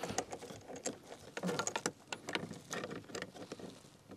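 Ratchet with a 10 mm socket clicking in short, irregular runs while a door-mirror mounting bolt is undone.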